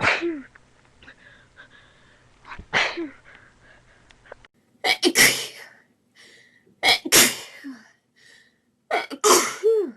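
A person in a rapid sneezing fit: five loud sneezes, about two seconds apart.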